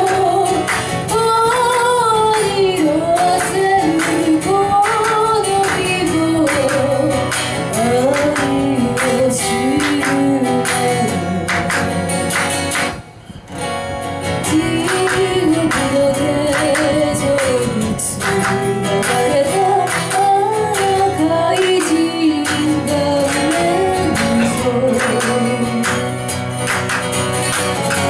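A woman singing a pop song live to a strummed acoustic guitar, with a steady beat. The music stops briefly a little before halfway, then picks up again.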